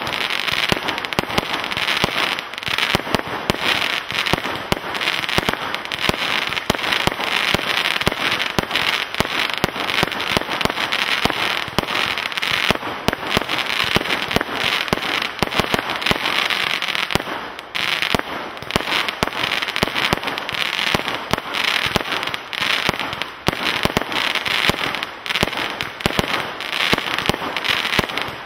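Hallmark Fireworks 'Fast and the Furious' multi-shot firework barrage firing: a rapid, unbroken run of launch shots and bursts, with a brief lull about two-thirds of the way through.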